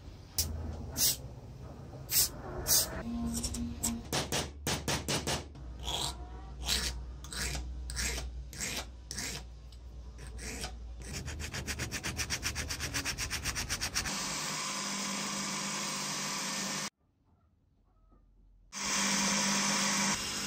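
Hand file rasping across a small flat steel part in repeated strokes, roughly two a second, then a fast run of short strokes. After a steady noise of a few seconds and a short silent gap, an electric bench motor with a spinning wheel starts and runs steadily with a low hum near the end.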